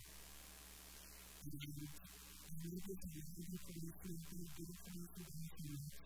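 Steady low electrical hum from the sound system, with a woman speaking into a microphone over it. Her speech starts again after a pause of about a second and a half.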